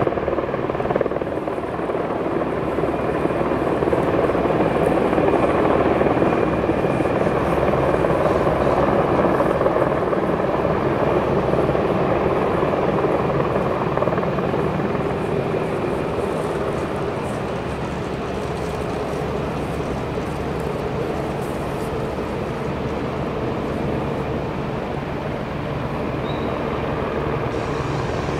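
Rhaetian Railway Capricorn electric multiple-unit train running steadily at low speed, a continuous noise of wheels on rails and traction equipment. It eases a little in level a little over halfway through.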